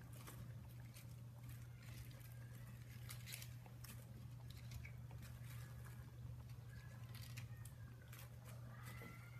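A pot of coconut milk and vegetables simmering, giving scattered faint pops and ticks over a steady low hum.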